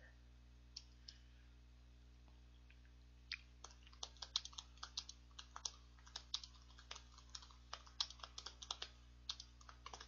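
Computer keyboard typing, faint: an irregular run of quick keystrokes starting a little over three seconds in.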